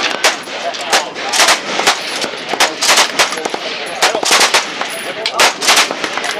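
Machine-gun fire on a shooting range: loud, sharp shots at uneven spacing, singly and in short clusters of two or three, a few per second.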